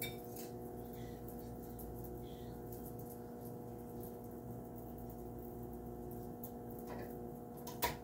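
Steady low hum of indoor room tone, with a small click at the start and a sharp, louder click near the end.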